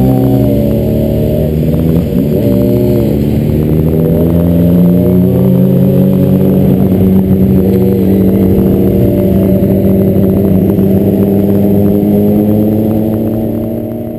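Motorcycle engine running hard at speed, with brief drops and recoveries in pitch near the start and again about eight seconds in, like quick gear changes, then pulling with a slowly rising note. The sound fades out at the end.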